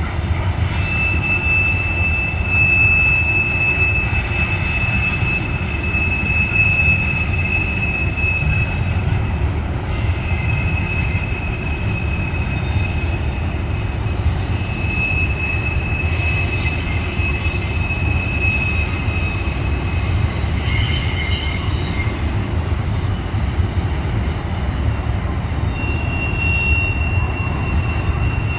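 Freight train cars rolling past with a steady low rumble, while high-pitched wheel squeals come and go every few seconds.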